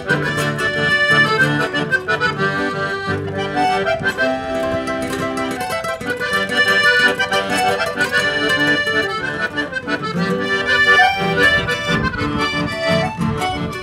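A piano accordion and an acoustic guitar playing a duet, the accordion carrying the melody over the guitar's accompaniment.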